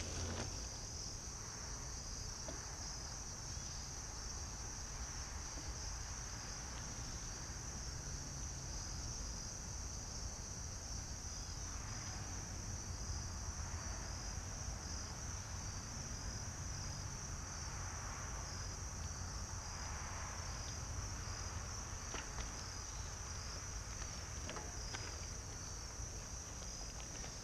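A steady, high-pitched chorus of crickets trilling at dusk. A bicycle's tyres crunch over gravel as it rolls past at the very start, and again near the end.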